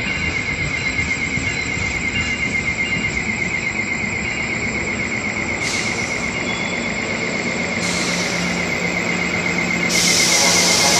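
NJ Transit commuter train easing into the station, squealing steadily in a high, slightly wavering tone as it brakes, over the rumble of its wheels on the rails. A louder hiss comes in near the end.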